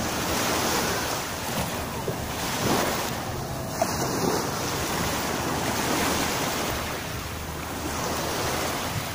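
Small sea waves washing up and drawing back on a sandy shore, rising and falling every second or two, with wind on the microphone.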